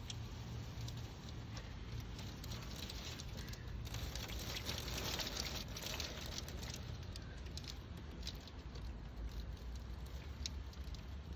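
Hail and rain pattering steadily, with many small ticks of hailstones striking; heaviest about four to six seconds in.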